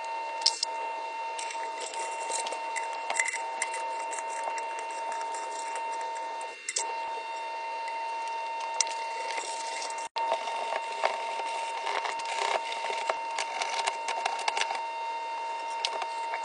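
Small clicks, taps and rattles of copper and brass pipe fittings being handled, taped and threaded together, over a steady high hum.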